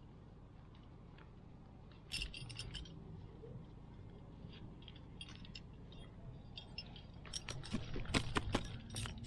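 Metal climbing gear, carabiners and cams on a harness rack, clinking and jingling in short bursts of clicks: a cluster about two seconds in and a denser, louder run near the end.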